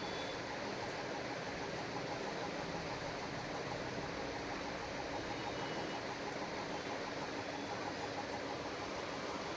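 Steady background hiss-like noise with no distinct knocks, clicks or tones.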